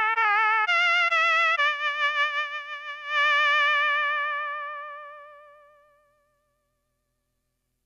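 Suiko ST-50 koto synthesizer playing a short phrase of sustained notes with vibrato. The last note is held; it wavers and dips, swells again about three seconds in, then fades away to silence.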